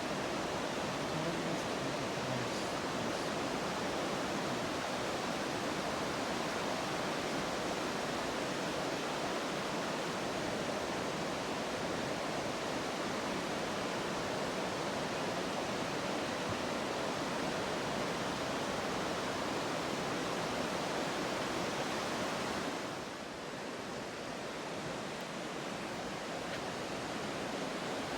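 Steady rushing roar of a large waterfall, Njupeskär, Sweden's highest. A few seconds before the end it drops a little and turns duller.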